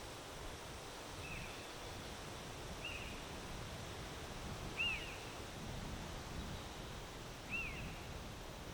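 Wind blowing steadily, with a low rumble, and a bird giving four short high chirps spread through it, the last two loudest.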